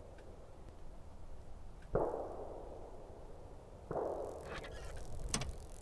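Distant gunshots with long rolling echoes: two shots about two seconds apart, then a fainter sharp crack near the end, over a low rumble of wind on the microphone.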